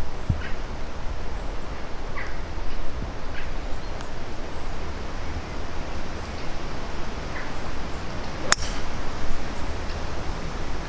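A single sharp click of a golf club striking the ball, about eight and a half seconds in, over a steady low background rumble.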